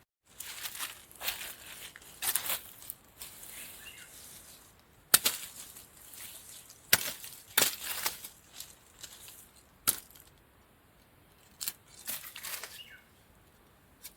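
Rustling of the leafy stalks of harvested sitharathai (lesser galangal) plants as the clumps are handled, broken by a handful of sharp snaps and cracks, the loudest about five seconds in.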